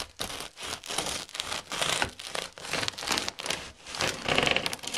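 A knife cutting through the crust of a freshly baked homemade loaf: a dense, crackling crunch, louder about two seconds in and again near the end. The crackle is the sign of a thick, crisp crust, formed by steaming the loaf with a tray of water in the oven.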